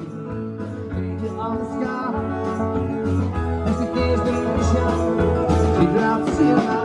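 Live band playing country-tinged acoustic rock: strummed acoustic guitar with keyboard and drums, the mix getting louder over about the first second.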